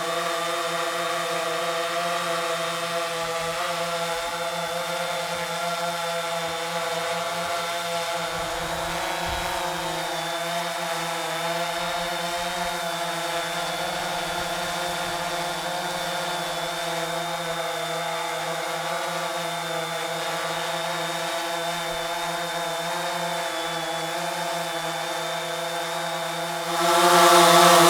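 DJI Phantom 3 Pro quadcopter's four motors and carbon-fibre-reinforced propellers running in flight, a steady buzzing hum of several tones that waver slightly in pitch. It becomes much louder just before the end.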